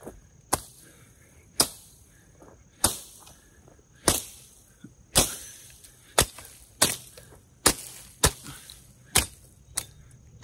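A machete hacking through brush: about a dozen sharp chops, roughly one a second, with crickets chirring steadily underneath.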